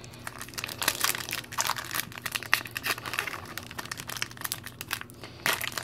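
Pokémon booster pack's plastic wrapper being opened by hand, with dense, irregular crinkling and crackling.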